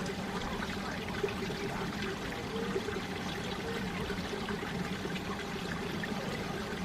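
Mountain valley stream flowing, a steady rush of running water.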